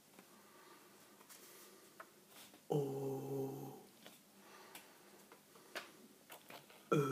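A person's voice holding a long, steady vowel for about a second, twice: once about three seconds in and again at the very end, as when sounding out syllables one by one.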